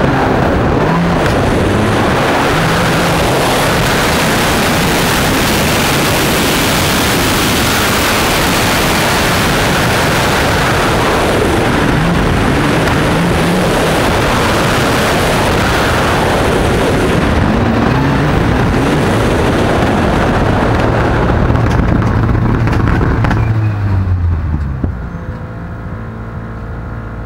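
Mitsubishi Lancer Evo X N4 rally car's turbocharged four-cylinder engine revving hard, its pitch rising and falling through the gears, over heavy tyre and gravel noise on a dirt track. About 25 seconds in it drops to a quieter, steady idle as the car stops.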